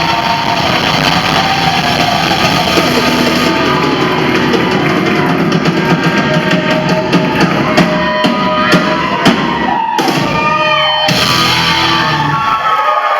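Loud live rock-style band music with electric guitar and drum kit. A little after ten seconds the band cuts out briefly, leaving sliding, bending notes, then comes back in. The low end drops away just before the end.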